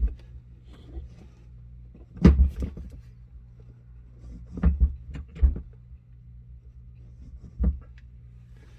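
A few separate metallic clunks over a low steady hum, from the quick-disconnect test rig being pumped back up to pressure. There are four clunks, the loudest a little over two seconds in.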